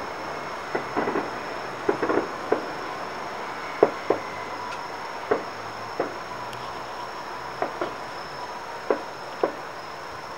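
Distant fireworks going off: a string of irregular sharp bangs, one or two a second, the loudest a little under four seconds in, over a steady background hum.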